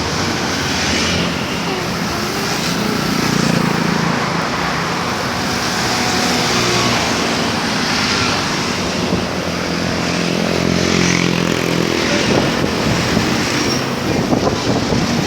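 Super-high-deck coach's diesel engine running steadily amid continuous road-traffic noise.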